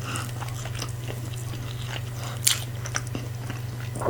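Close-up chewing and wet mouth smacks of a person eating tender meat, with scattered short clicks, the sharpest about two and a half seconds in. A steady low hum runs underneath.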